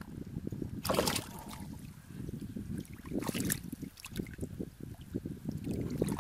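Shallow muddy water sloshing and splashing as a person wades and gropes through it by hand for fish, with two louder splashes, about a second in and around three seconds in.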